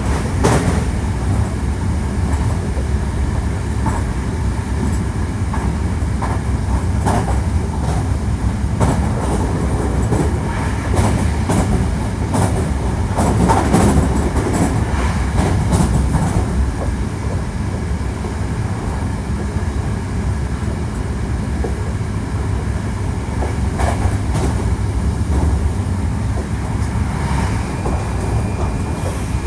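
Hankyu 1300 series electric train running at speed: a steady low rumble with the click of wheels over rail joints, busiest in the middle stretch. A faint steady high tone comes in near the end.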